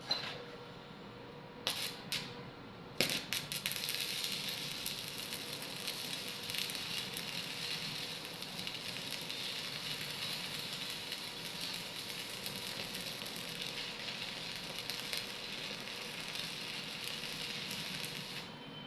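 Electric arc welding: a few short crackles about two seconds in, then the arc catches about three seconds in and runs with a steady crackling sizzle before cutting off just before the end.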